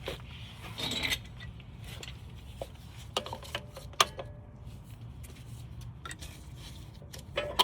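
Metal clinks and taps with short ringing as a C-clamp and an old brake pad are handled and set against the brake caliper to push the piston back, with a scrape about a second in. A steady low hum runs underneath.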